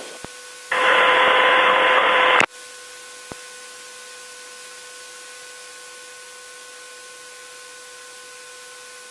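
Aircraft radio and intercom audio: a click, then a burst of radio static lasting nearly two seconds that cuts off abruptly. A steady hiss with a faint electrical whine follows, with another click a little later.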